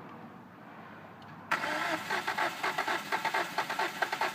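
2005 Hyundai Sonata's 2.4-litre DOHC four-cylinder engine cranking on the starter. It kicks in suddenly about a second and a half in, with a rapid, even pulsing beat, and does not catch: the hard-start fault, the engine turning over but not starting.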